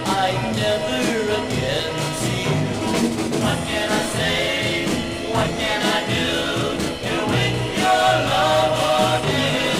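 A 1965 pop record: a singer over a full band with a steady beat.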